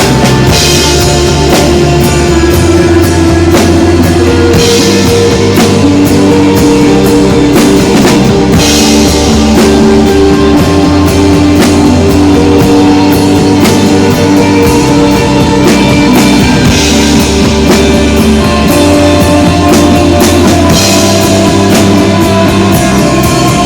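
Live instrumental rock band playing: drum kit, bass and electric guitar, with sustained guitar notes over a steady beat and a cymbal wash about every four seconds.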